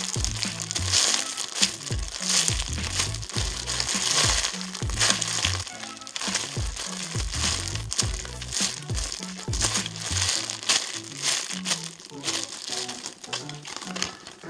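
A polyurethane foam squishy toy being squeezed and handled close to the microphone, giving repeated crinkly rustling squashes, over background music with a steady bass line.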